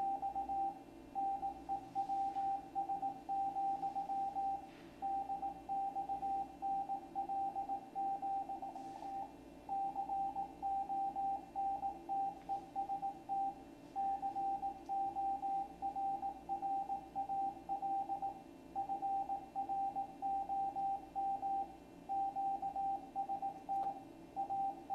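Morse code from ARRL station W1AW received on a shortwave radio: a single steady beep tone keyed on and off in dots and dashes over low radio noise. It is sending part of a DX bulletin, "425 DX News, DXNL, Contest Corral from QS…".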